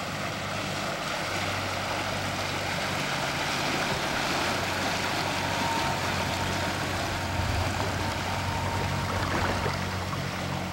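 The 50 HP Honda four-stroke outboard of a small aluminium tugboat running steadily at low speed as the boat passes close by, a low hum under the wash of water from its wake.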